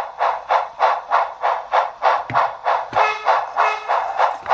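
DCC sound decoder in a brass Sn3 model steam locomotive playing steady steam exhaust chuffs, about four a second, through its small speaker.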